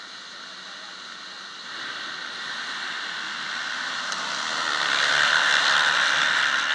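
A field of motocross bikes revving together and launching off the start line. Their engines build steadily to a loud, massed scream, loudest about five to six seconds in as the pack races past.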